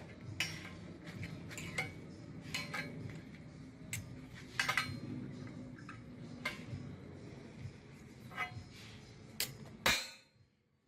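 Irregular light metallic clinks and taps, like small metal parts or tools being handled, over a faint low hum; a louder knock comes near the end.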